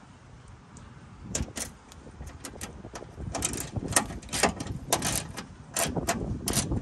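Irregular metallic clicks and clacks from hand work on a Chevy Cheyenne pickup's stripped inner door: tools and small parts knocking against the bare steel. They come in short clusters, starting about a second and a half in.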